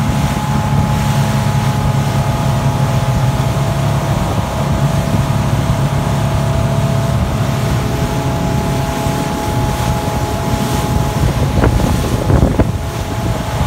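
A 250-horsepower outboard motor running at speed with a steady drone, over the rushing of its wake and wind on the microphone. A few short knocks come near the end.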